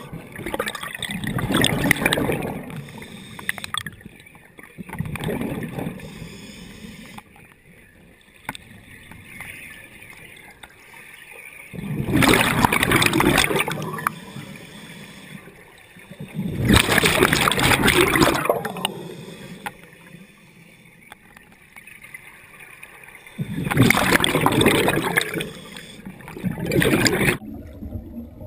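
Scuba divers' open-circuit regulators underwater: exhaled air bubbles out of the exhaust in several loud rushing bursts, each lasting one to two seconds and a few seconds apart, with quieter stretches between breaths.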